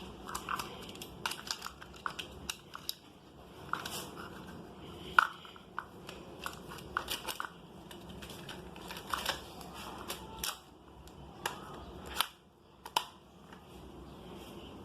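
Irregular clicks, clacks and knocks of toy cars and plastic play-set pieces being handled and moved, with a loud knock about five seconds in, over a steady low hum.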